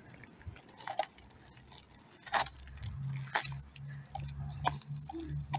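Electric kick scooter rolling over cracked asphalt: a low rumble that sets in about halfway through, with a few sharp clicks and rattles, the loudest two about a second apart.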